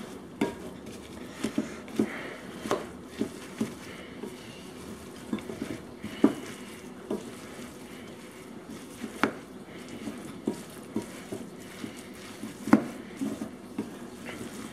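Wooden spoon stirring oats and pecans in a glass bowl, coating them in a wet honey and nut-butter mixture. A low rustling scrape runs throughout, broken by irregular light knocks of the spoon against the glass.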